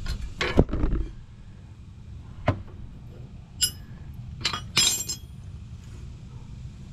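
Steel hand tools clinking: a few metal clunks in the first second as a wrench works the tie rod end, then a single click, and several sharp ringing clinks of wrenches knocking against each other and the other tools on the concrete about four to five seconds in.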